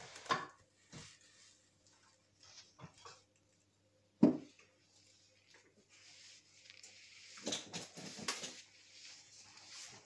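Small parts of an opened hair dryer being handled on a workbench: scattered light clicks, one sharp knock about four seconds in, then a few seconds of scratchy scraping and rustling.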